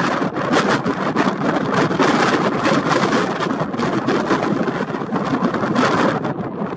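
Loud wind noise buffeting the camera microphone, rising and falling in gusts.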